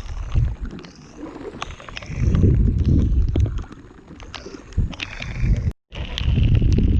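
Wind buffeting the exposed camera microphone in surging low rumbles, with scattered sharp taps of raindrops hitting it; the sound cuts out completely for a moment about six seconds in.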